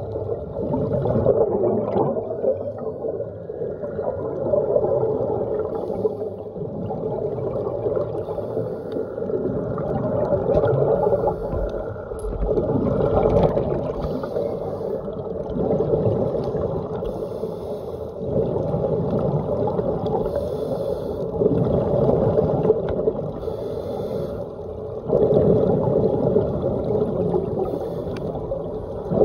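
Muffled underwater sound picked up through a phone's waterproof dive case: scuba divers' exhaled regulator bubbles gurgling, swelling and easing every few seconds.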